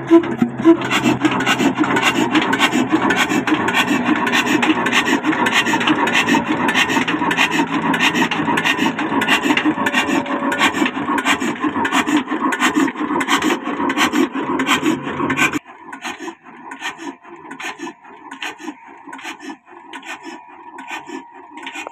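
Old 22 hp black diesel engine of the Ruston type running under load, driving a flour mill: a fast, rasping, rhythmic clatter. About fifteen seconds in it drops abruptly to a much quieter level, with the same rhythm going on.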